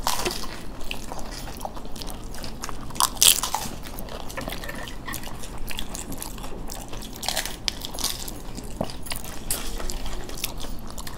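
People chewing and crunching dahi puri, puffed puri shells filled with curd, with wet mouth sounds and scattered short crunches and clicks.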